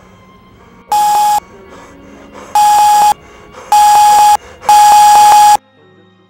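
Electronic alarm clock beeping: four bursts of rapid beeps at one high pitch, each burst longer and louder than the last, cutting off suddenly about five and a half seconds in.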